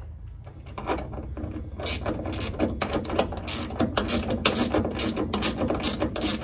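Ratchet wrench clicking in quick runs as a nut is tightened onto a hood gas-strut ball-end stud, starting about a second in.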